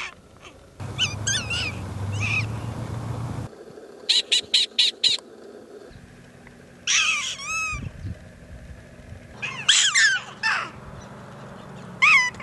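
Prairie dogs calling: short, high, bird-like barks and yips with a rising-then-falling pitch, including a quick run of five sharp chirps about four seconds in and pairs of calls later. The background changes abruptly several times, as if separate field recordings were spliced together, with a low rumble under the first few seconds.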